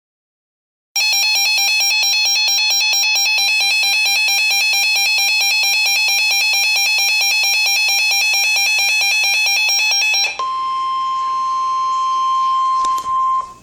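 Emergency alert tones announcing a severe thunderstorm warning: starting about a second in, a harsh, rapidly warbling electronic alarm for about nine seconds, then a steady pure tone, the NOAA Weather Radio warning alarm tone, for about three seconds before it cuts off.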